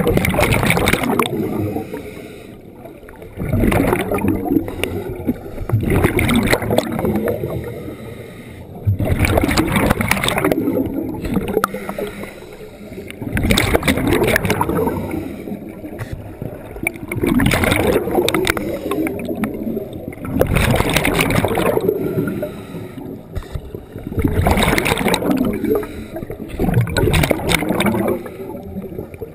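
A scuba diver breathing through a regulator, heard underwater through a head-mounted camera housing. Exhaled bubbles rush past the camera in loud surges about every three to four seconds, with quieter stretches between them as the diver inhales.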